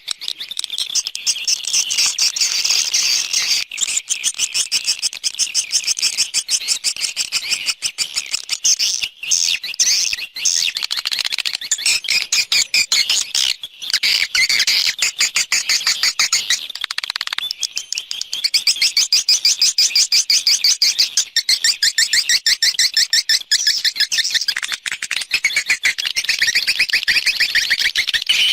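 Swiftlet calls used as an external lure sound for swiftlet houses: a dense, continuous chatter of very rapid, high chirps and clicks, many a second.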